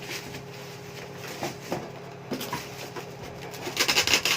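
Styrofoam packing being pulled off a PC case: a few light knocks, then a burst of rubbing and scraping near the end.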